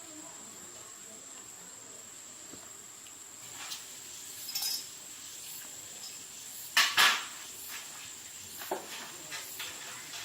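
A few sharp clicks and clinks of small hard objects being handled, the loudest a quick pair about seven seconds in, over a faint steady hiss with a thin high whine.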